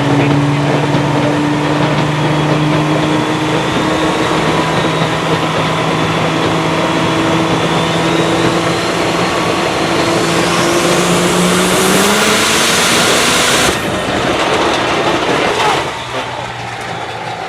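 High-horsepower diesel engine on a chassis dyno making a pull: the engine note climbs slowly under load while a turbocharger whine rises steeply in pitch, then the throttle is cut about fourteen seconds in and the engine drops back.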